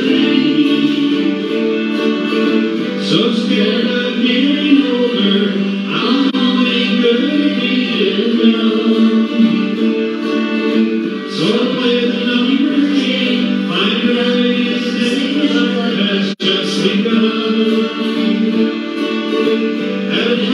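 Live acoustic band: a singer over a strummed acoustic guitar. The sound cuts out for an instant about three-quarters through.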